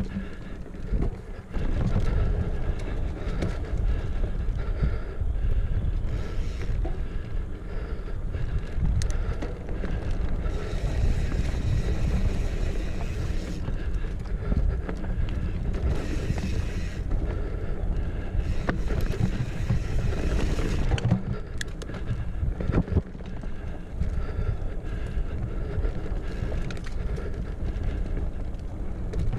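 Riding noise from a mountain bike on a dirt trail, picked up by a chest-mounted action camera: wind buffeting the microphone and tyre rumble, with frequent small rattles and knocks from the bike over bumps.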